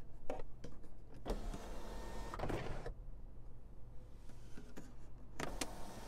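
Clicks of the overhead console switch, then the 2020 Acura RDX's power sunroof motor running for about a second and a half. It stops, and starts again near the end with a steady tone.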